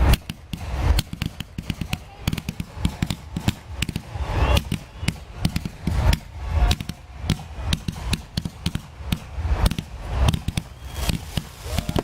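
Fireworks display: a dense, continuous run of bangs and crackling, several reports a second, with deeper booms every second or two.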